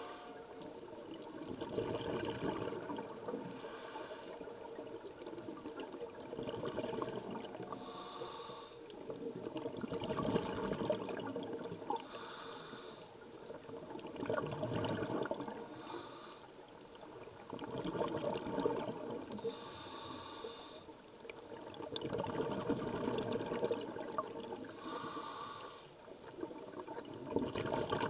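Scuba diver breathing through a regulator underwater. A short hiss on each inhalation comes about every four seconds, followed by a longer, louder rush of exhaled bubbles.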